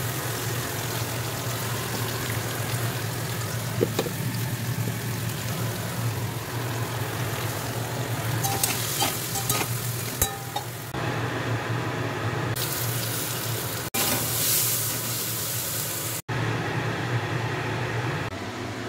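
Sliced bitter gourd frying in oil in a wok: a steady sizzle with a few clicks from a stirring spatula. The sizzle changes level abruptly a few times.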